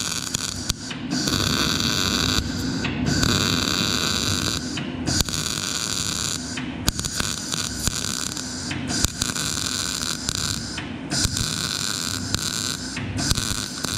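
MIG welder burning steel wire under CO2 shielding gas: a steady arc crackle and hiss, broken off and struck again several times, about every two seconds, as the bead is laid in short runs.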